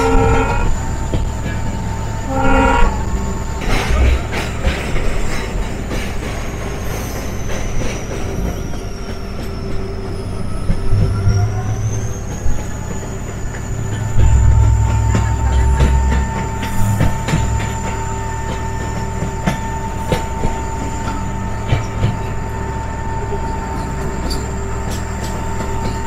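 Passenger train running through hill country, heard from one of its coaches: a steady rumble with the rapid clatter of wheels over rail joints, and two short blasts of the locomotive horn, at the start and again about three seconds in.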